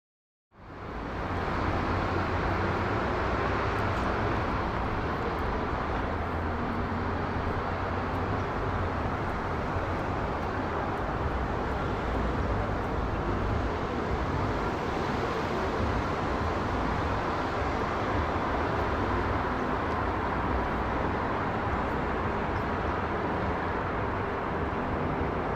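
Steady jet roar of a Boeing 777-200ER's engines passing overhead, holding at an even level. It starts abruptly about half a second in.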